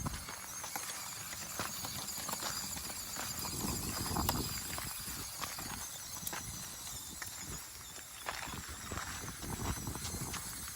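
Redcat Ascent-18 1/18 brushed electric RC rock crawler clambering over rough ground: irregular knocks and clicks of its tires and plastic chassis on the rocks, with a faint high whine.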